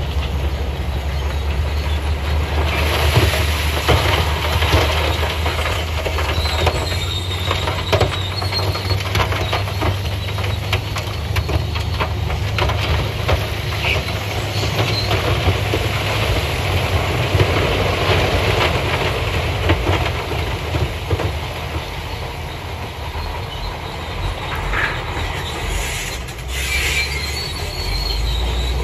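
Dump truck's diesel engine running steadily while its bed tips up, with a continuous clatter of rocks scraping and tumbling as the load slides out onto the stone pile.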